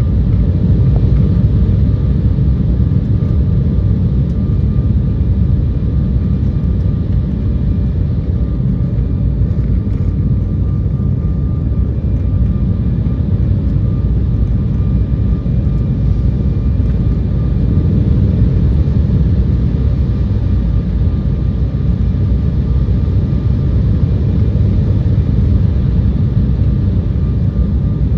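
Steady cabin roar inside an Embraer E170 jet descending on approach with flaps extended: airflow and the twin wing-mounted GE CF34 turbofans make a deep even rumble, with a faint steady high whine above it.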